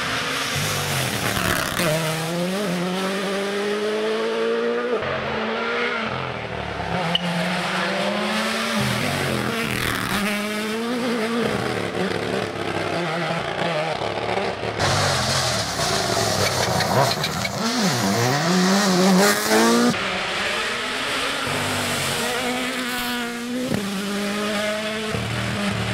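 Toyota GR Yaris Rally1 rally car's turbocharged four-cylinder engine at full throttle, pitch climbing through the gears with sharp drops at each shift and lift. Several passes follow one after another.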